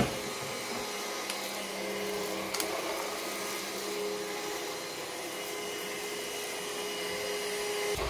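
Moolan cordless stick vacuum cleaner running steadily on carpet: a steady motor hum over a rush of suction air. There is one short knock right at the start.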